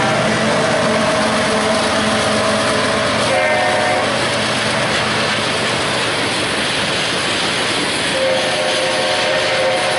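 Union Pacific freight train passing close by, tank cars rolling over the rails. The diesel locomotives pulling away ahead sound their horn for a grade crossing: held horn tones in the first few seconds and again from about eight seconds in.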